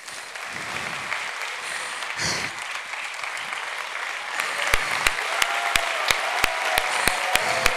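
Large audience applauding, building up after a speech ends; from about five seconds in, single loud claps close by stand out at about three a second over the steady clapping.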